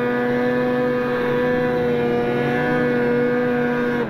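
Snowmobile engine running at a steady high pitch under throttle while riding, one even note with no change in revs.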